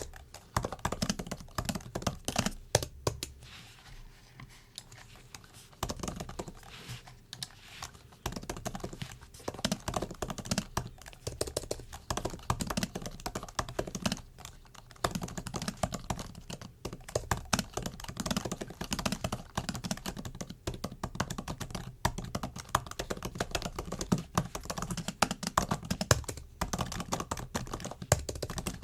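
Typing on a MacBook keyboard: quick runs of light key clicks with short pauses, easing off for a couple of seconds early in the stretch.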